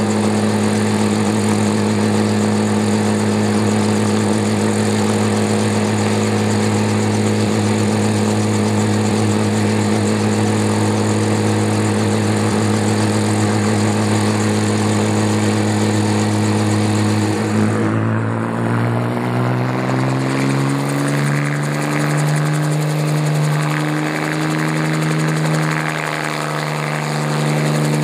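Bell 47 helicopter's piston engine and main rotor running with a steady low drone. About two-thirds of the way through, the sound changes: the pitch sits higher and wavers up and down.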